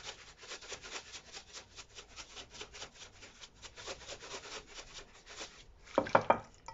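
Plastic shaker of ground black pepper shaken rapidly, a dry rattle of about five or six shakes a second that stops about five and a half seconds in. A brief louder sound follows near the end.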